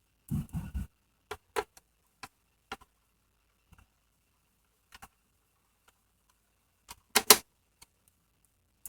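Scattered light clicks and taps of small screws, a screwdriver and the plastic shell of a Roomba being handled while its handle is screwed on, with a louder double knock about seven seconds in.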